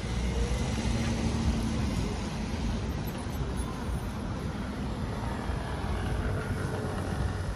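Street traffic: cars driving past, with engine and tyre noise over a steady low rumble.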